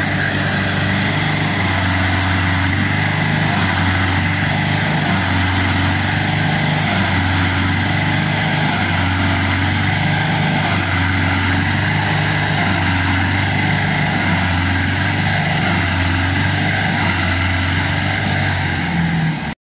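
Mahindra tractor's diesel engine running hard and steadily while trying to pull a heavily loaded soil trolley, its note swelling and easing in a slow regular pulse about every two seconds. The sound cuts off abruptly just before the end.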